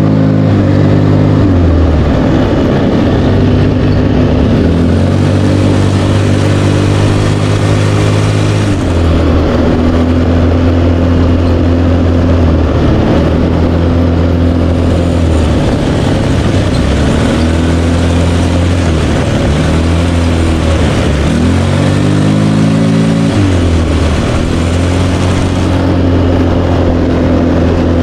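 ATV engine running under throttle. Its pitch dips and climbs again several times as the quad eases off and speeds up, and holds steady in between.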